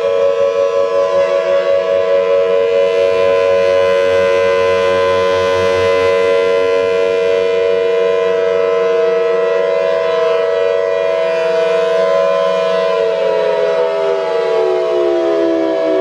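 Several outdoor warning sirens sounding together on steady tones at different pitches, beating against each other. About 13 seconds in, one of them starts to wind down, its pitch falling while the others hold.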